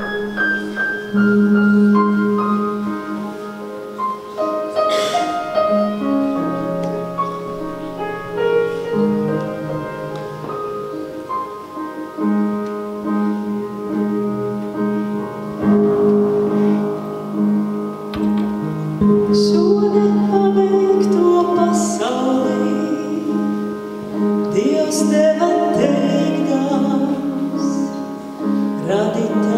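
Live song with piano and electric bass guitar playing a slow introduction, joined by a woman singing in the later part.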